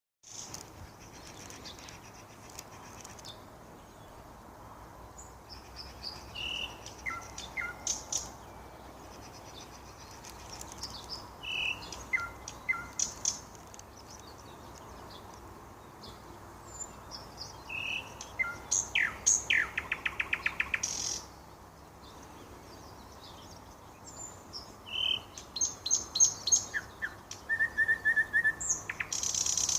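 Nightingale singing: phrases a few seconds long separated by pauses, mixing clear whistles, sharp high notes and fast rattling runs of rapidly repeated notes.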